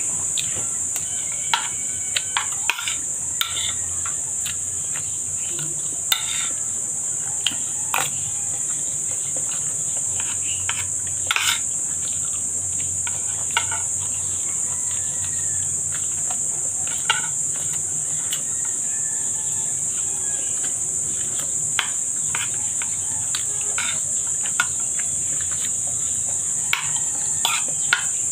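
Eating sounds: a metal spoon clicking and scraping against a bowl of rice and squid, with chewing, in short scattered clicks. A steady high-pitched buzz runs underneath.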